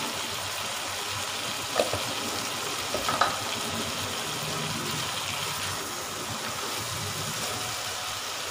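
Meatballs sizzling steadily in hot oil in a frying pan, just after cumin seeds were added. A couple of short clicks about two and three seconds in.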